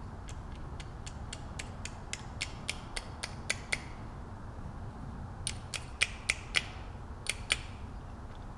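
Small metal parts of a car window winder handle's lock barrel clicking as a pivot is worked into its seat with a screwdriver: a run of about a dozen quick, sharp clicks, a pause about four seconds in, then a few more clicks.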